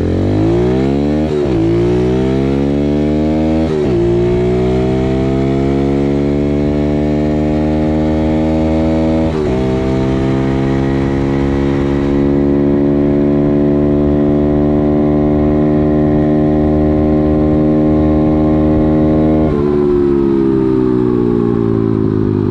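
A Kawasaki KLX110 dirt bike's small four-stroke single-cylinder engine at full throttle on a top-speed run. The revs climb and drop sharply with three upshifts, then hold steady at a high pitch near its top speed of about 42 mph. Near the end the throttle is rolled off and the pitch falls.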